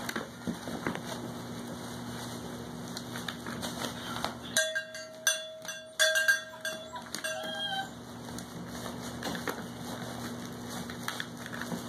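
A young puppy whining: one held, steady-pitched cry starting about four and a half seconds in and lasting about three seconds, with a short break partway through, over light scattered clicks.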